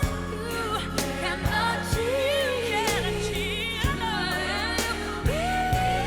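Background pop song: a solo singing voice in long, wavering runs over a steady beat.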